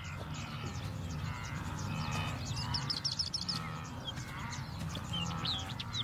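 Savanna ambience: many birds chirping and calling in quick, overlapping notes over a steady low rumble.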